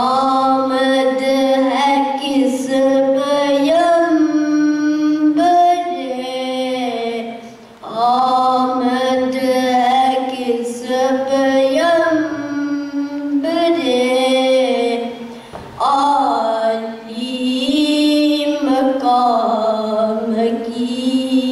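A boy's solo voice chanting a devotional piece unaccompanied into a microphone. Long held, ornamented melodic phrases, with short breaks for breath about a third and two-thirds of the way through.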